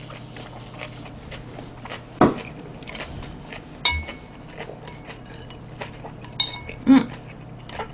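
Chopsticks clinking and knocking against a bowl of noodles: a few separate clinks about two, four and seven seconds in, the one near four seconds ringing briefly.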